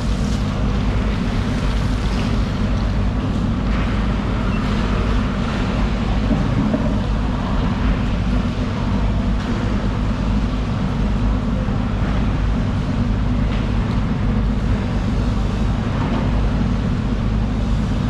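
Steady low engine rumble, unchanging throughout, with a haze of background noise above it.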